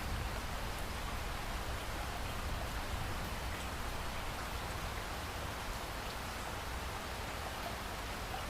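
Steady rainfall, an even hiss of drops, with a low rumble of distant thunder beneath that is strongest in the first second and then settles.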